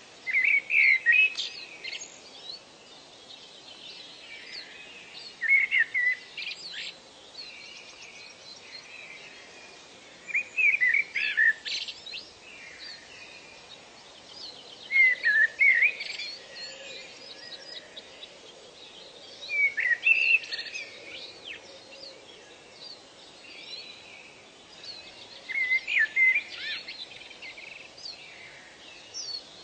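A songbird repeating a short burst of quick chirping notes about every five seconds, over faint steady background noise.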